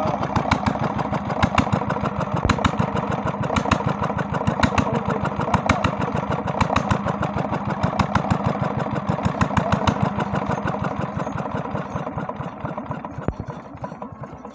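Freshly rebuilt SD 23 HP single-cylinder diesel engine running at a steady idle with an even, rapid knock of firing strokes, about five a second; it runs smoothly after its full overhaul. The sound fades near the end.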